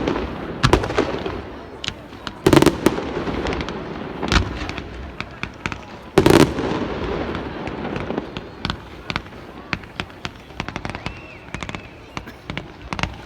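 Fireworks display: four heavy shell bursts about two seconds apart, each followed by a rolling rumble, then a run of quick crackling pops through the second half.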